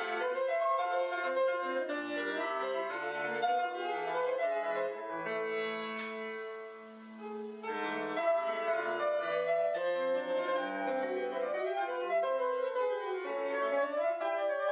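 Solo grand piano being played: a steady run of notes that, about five seconds in, settles on a held chord which dies away for a couple of seconds before the passage picks up again.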